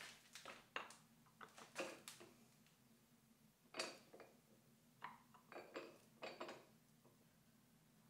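Faint scattered clicks and knocks of a wooden block and a thin strip being handled and set against the steel jaws of a machine vise: a cluster in the first two seconds, one near the middle, and a group a little past halfway.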